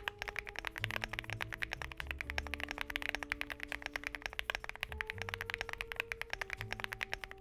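Continuous fast typing on a Lucky65 v2 mechanical keyboard with Keygeek Little Ghost linear switches, which are designed for a deep, thocky sound. The keystrokes come in a dense, quick succession.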